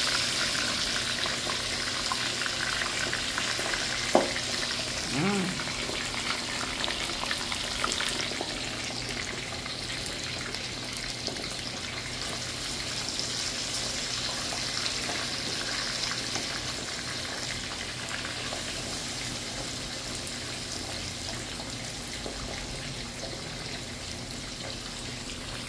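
Whole fish deep-frying in hot oil in a wok over a charcoal fire: a steady, high sizzle that slowly fades, with a single sharp knock about four seconds in.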